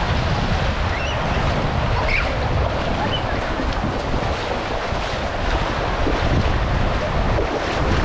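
Small waves washing and lapping in shallow surf, with wind buffeting the microphone as a steady low rumble.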